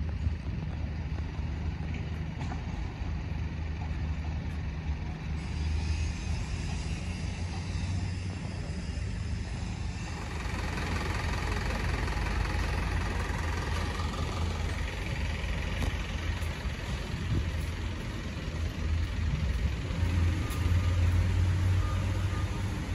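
Road traffic: the low, steady rumble of motor vehicle engines with tyre and road noise, a little louder near the end.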